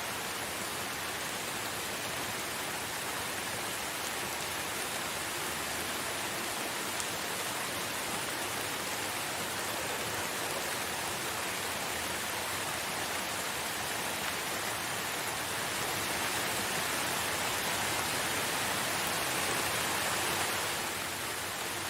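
Steady rain falling, an even hiss of drops with no tune in it, swelling a little louder for a few seconds in the second half before easing back.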